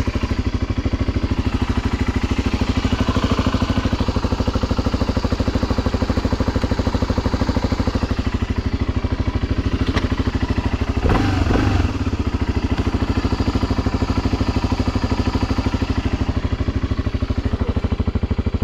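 BMW G 650 Xcountry's single-cylinder engine running steadily at idle, with a short louder burst about eleven seconds in.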